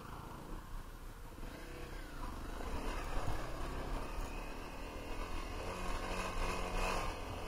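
Dual-sport motorcycle engine running and revving as it is ridden up a rough dirt trail, with a pitch glide about two seconds in and a louder rush of noise near the end.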